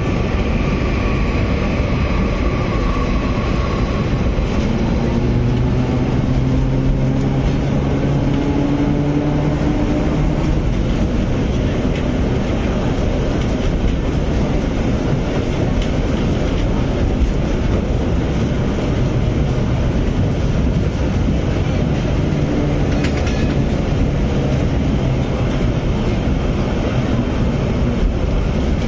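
Historic 1914 tram running along street track, heard from inside its cab: a steady rumble of wheels on the rails and the car's running gear, with a hum that rises in pitch between about five and ten seconds in.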